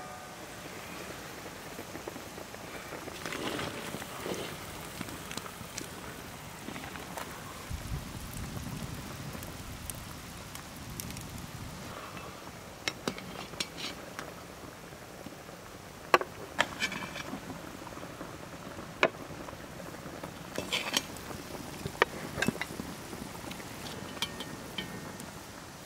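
A large metal cauldron of lamb simmering over a wood fire, a steady hiss, while a metal ladle scrapes, clinks and knocks against the pot. The sharp clinks and knocks come thickest over the second half as the meat is stirred and pieces go into the pot.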